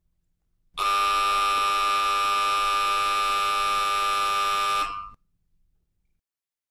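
An electric buzzer sounding one long, steady, harsh tone for about four seconds, starting abruptly and cutting off.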